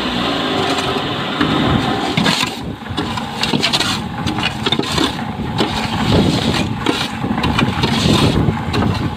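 Shovel and steel rod scraping and raking concrete mix across the steel feed tray of a hollow-block making machine: irregular grating and clattering of gravel on metal, busier from about two and a half seconds in.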